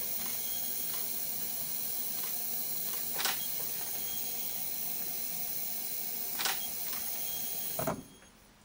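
Kitchen tap running into a glass bowl in a stainless steel sink, a steady rush of water, with a DSLR shutter clicking about every three seconds. The water sound cuts off abruptly near the end.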